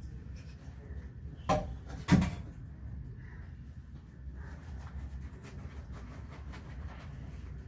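Dishwashing by hand: two sharp knocks of dishes or utensils being handled, about a second and a half and two seconds in, among faint clinks.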